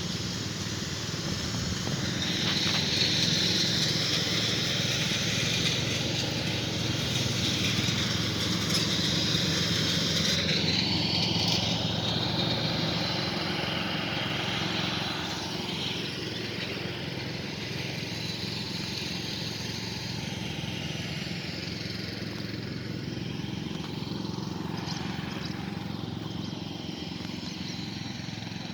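Lawn mower engine running steadily while mowing grass, a little louder through the first half.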